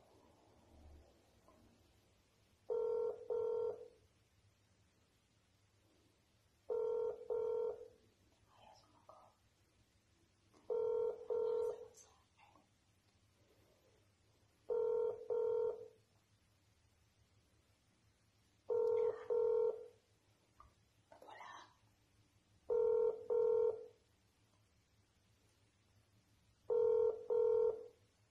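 Smartphone's ringback tone on speaker during an outgoing call: a double beep repeating about every four seconds, seven times. It signals that the other phone is ringing and the call has not yet been answered.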